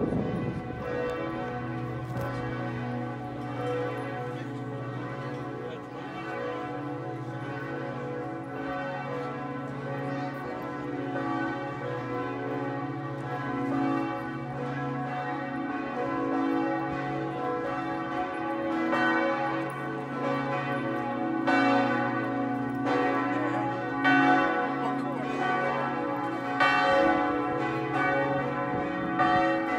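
Three swinging church bells (bells 2, 3 and 4 of the tower's peal) ringing together in a partial peal, their strikes overlapping over a steady low hum. The strikes come louder and clearer in the second half.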